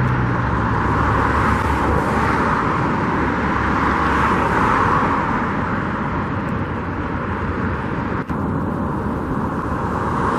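Steady rush of passing road traffic, swelling and fading as vehicles go by.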